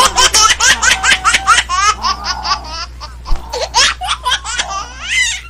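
High-pitched laughter: a rapid run of short ha-ha syllables, about five a second, loosening into more uneven bursts after about three seconds.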